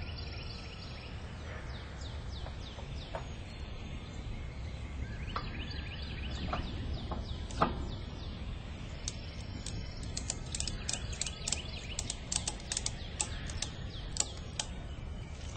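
Tree-stand straps being fastened around a tree trunk: quick runs of sharp clicks from the strap hardware, thickest in the second half. Birds chirp faintly in the first few seconds.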